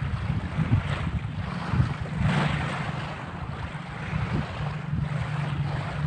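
Small waves washing onto a gravel beach, swelling and fading, with wind rumbling on the microphone.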